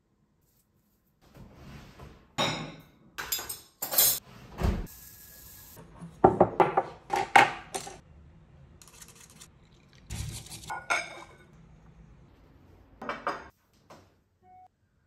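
Kitchen clatter from making matcha: cups, a tin and utensils clinking and knocking in short separate clusters, with quiet gaps between.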